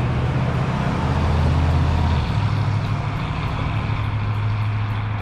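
The 350 cubic-inch V8 of a 1958 Chevrolet Apache pickup pulls the truck away under throttle. Its deep engine note steps down about two seconds in, then holds steady.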